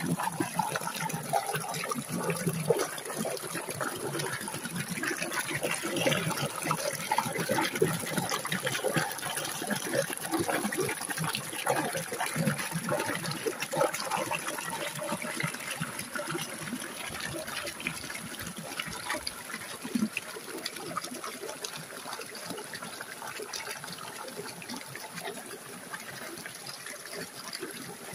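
Stream water splashing and gurgling as it runs down a small cascade through a narrow chute between boulders, a little quieter in the second half.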